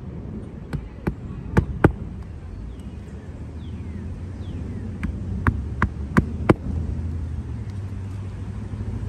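Hammer blows driving roofing nails into a replacement asphalt shingle: a run of four sharp knocks about a second in, then five more in a quick even rhythm from about five seconds in.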